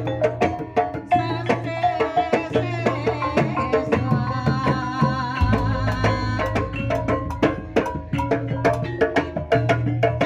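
Live Javanese gamelan music for a kuda kepang (horse trance dance) performance: a double-headed kendang hand drum drives a fast, even beat over struck bonang kettle gongs and a saron metallophone, with a deep low stroke coming in about five seconds in.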